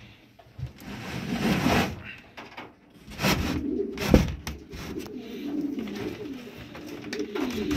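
Domestic pigeons cooing in a loft, with bursts of scraping noise and a sharp knock about four seconds in.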